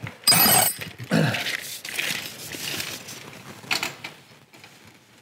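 Open-end wrenches working on a snowmobile ski tie rod as it is lengthened to correct a slight toe-out. There is a loud metallic clink with a brief ring near the start, a knock about a second in, then softer scraping of the wrench on the rod and a sharp click near four seconds.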